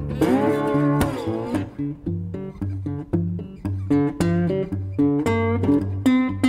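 Background music on guitar: a long wavering, sliding note for about the first second and a half, then quick plucked notes over a repeating bass line.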